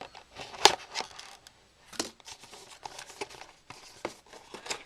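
Puzzle packaging being handled and opened: scattered clicks, scrapes and crinkles of a cardboard box and plastic wrap.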